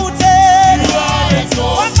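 Gospel praise music: a singer holds a long wavering note early on over a full band backing.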